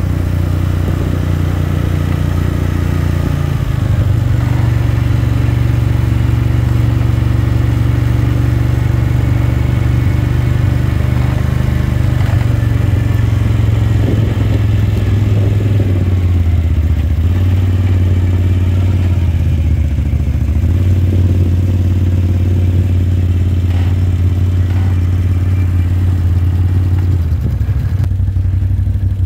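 Quad (ATV) engine running while riding, a loud low steady note that steps up and down in pitch several times, with occasional knocks and rattles.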